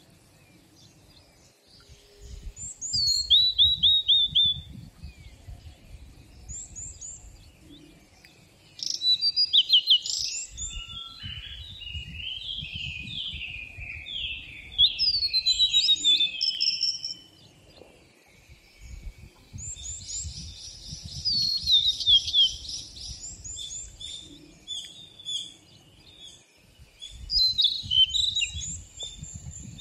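Several songbirds singing and calling, with runs of quick, high, falling notes and trills that come in spells with short pauses between them. A faint low rumble sits underneath in places.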